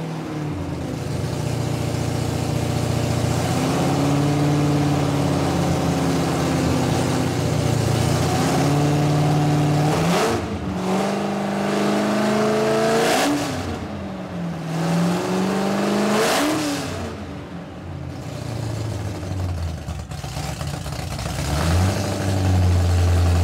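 Supercharged nitro-burning hot rod roadster engine running loud at fast idle, blipped sharply three times, about ten, thirteen and sixteen seconds in, each rev rising and falling quickly, then settling into a deep steady run near the end.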